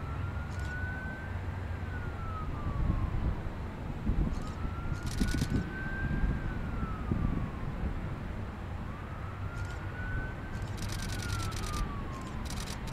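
An emergency-vehicle siren wailing in slow cycles, each rising quickly, climbing a little more, then falling, about every four and a half seconds, over a steady low rumble of military helicopters flying past.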